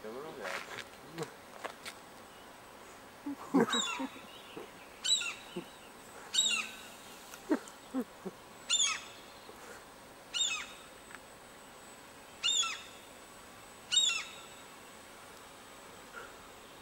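Common gulls calling overhead: about seven loud, high calls, each falling in pitch, a second or two apart.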